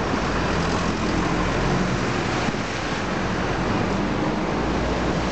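Steady diesel engine and hydraulic noise of a demolition excavator working its crusher jaws on a brick building, mixed with street traffic.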